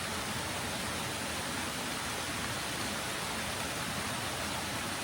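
A waterfall's falling water rushing in a steady, even wash of sound that does not change.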